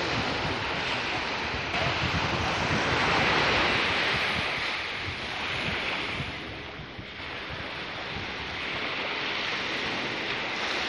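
Steady rushing wind-and-surf noise. It swells a few seconds in and eases off around seven seconds.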